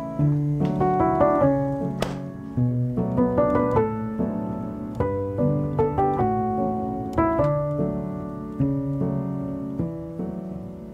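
Background piano music, a gentle melody of single notes and chords, each note ringing and fading.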